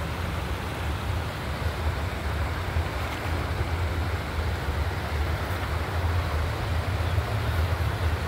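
Shallow rocky river rushing over stones in a steady hiss, with wind rumbling on the microphone underneath.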